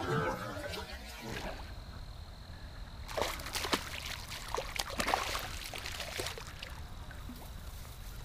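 A hooked fish splashing and thrashing at the water's surface as it is reeled in close to the bank, with a run of sharp splashes from about three seconds in.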